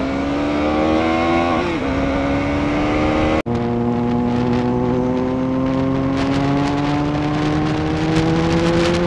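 KTM 390 Duke's single-cylinder engine pulling hard at full throttle, its note climbing steadily. There is a quick upshift about two seconds in, then a long rising pull in the next gear, and the sound breaks off for an instant about three and a half seconds in.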